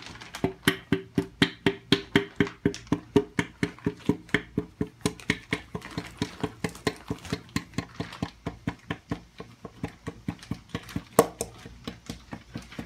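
Screwdriver tapping steadily on a Manley connecting rod to seat it and its Wiseco piston on the K24 crankshaft journal. About four light metallic taps a second, each with a short ring, and one louder knock near the end.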